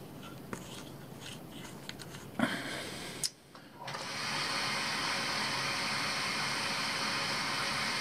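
Water hissing steadily through a brass automatic filling valve as it feeds a central-heating circuit. The hiss starts about halfway, after a sharp knock and a brief drop-out; before that, faint handling ticks.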